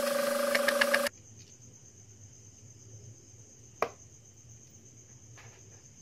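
Compressed air blasting from an air compressor's blow nozzle onto the refrigerator's wet wiring: a loud hiss with a steady hum, cut off suddenly about a second in. After it a cricket's faint steady trill goes on, with a single sharp click near the middle.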